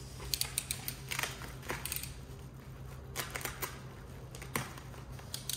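Bubble wrap and plastic tape crinkling and snapping as they are cut with a box cutter and pulled away, in irregular clusters of short clicks, over a low steady hum.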